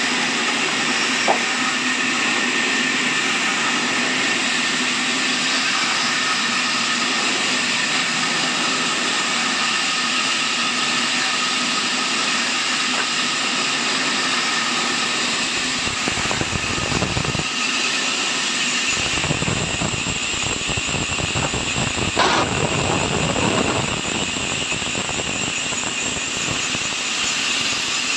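Horizontal band sawmill running, with a steady high-pitched squeal from the saw. A deeper rumble joins about halfway through, and there is a single knock a little after that.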